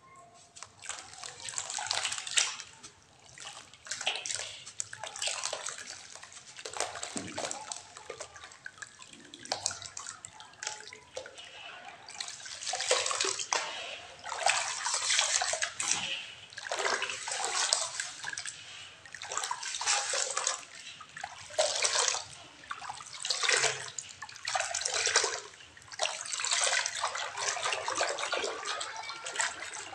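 Water sloshing and swishing as cowrie shells and small clay toys are stirred around in it, in repeated surges roughly every one and a half to two seconds.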